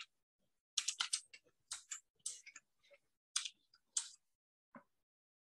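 Computer keyboard keys clicking quietly in short, irregular runs as a terminal command is typed.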